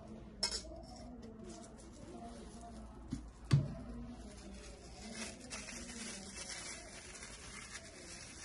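Stainless steel shaker cups being handled: a light metallic click about half a second in, then a sharper metal knock with a dull thump about three and a half seconds in.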